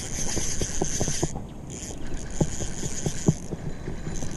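Zebco 33 spincast reel being cranked to bring in a hooked fish: a high whirring from the reel in three stretches of about a second each, with scattered light clicks.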